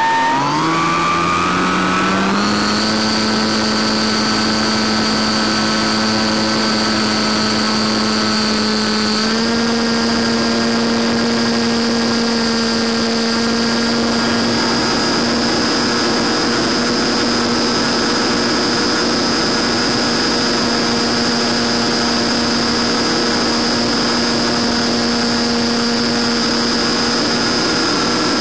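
An FPV RC plane's electric motor and propeller spool up from low power, rising in pitch over the first couple of seconds, then run at climb power with a steady drone and a high whine. The pitch steps up slightly about nine seconds in.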